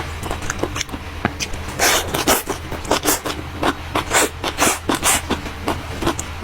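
Crisp, irregular crunching and scraping of shredded green papaya salad: a quick, uneven run of short noises, thickest through the middle, over a low steady hum.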